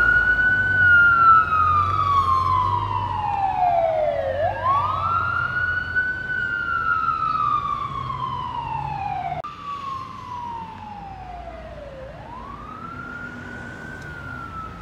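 Fire engine siren on a 2005 Seagrave Marauder II sounding a wail. Each cycle sweeps up quickly, then slides down slowly over about four seconds, with a low engine rumble underneath. It grows fainter as the truck moves away, with a sudden drop about two thirds of the way through.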